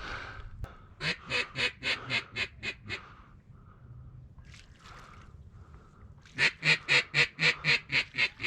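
Mallard-hen-style quacking: two runs of about ten quacks each, about four or five a second, the second run starting loud and fading away.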